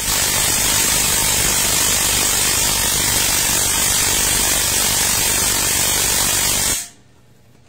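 Cordless impact wrench running on a scooter's rear wheel axle nut, a loud steady power-tool noise that cuts off suddenly a little before the end.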